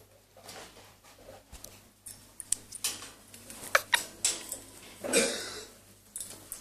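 Pet parrot making a run of sharp clicks, then a cough-like noise about five seconds in.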